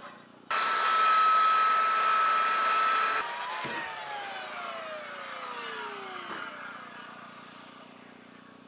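Small electric chainsaw starting up suddenly and running at full speed for about three seconds with a steady whine. It is then released and the motor winds down, its pitch falling steadily for about three seconds as it coasts to a stop.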